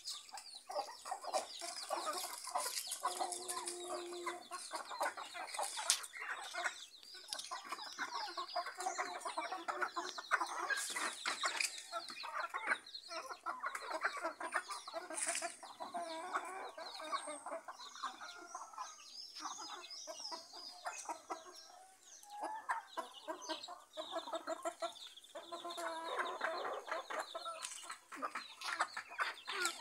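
A flock of chickens clucking and calling as they forage, many birds overlapping throughout.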